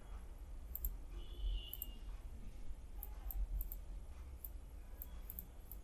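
Faint computer mouse clicks, a few irregular ones, over a steady low hum.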